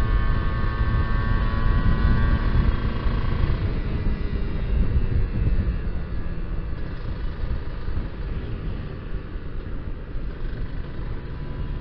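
Kawasaki Ninja R two-stroke motorcycle being ridden, heard through a heavy rush of wind on the rider's microphone. A high engine whine sounds over the wind for the first few seconds, then fades out as the overall noise gradually eases.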